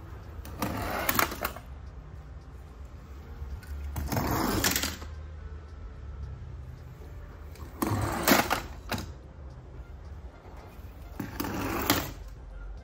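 Small die-cast toy cars rolling down a corrugated plastic board into a box of other toy cars. Four runs, each a rattle of about a second, come roughly three and a half seconds apart.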